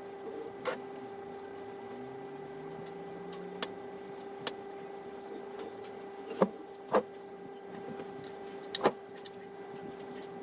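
A steady electrical hum from bench equipment, with about six sharp clicks and taps scattered through, as small tools work on the light's LED circuit board during soldering.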